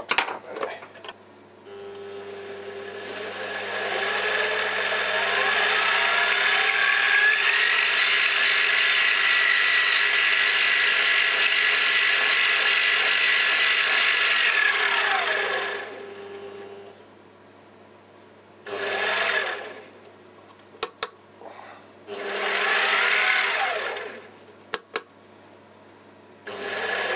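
Warco mini lathe's new 550-watt motor run up on the speed control: a whine rising in pitch for a few seconds, held steady at top speed for about eight seconds, then falling away and stopping. Two shorter run-ups and run-downs follow, with a few sharp clicks between.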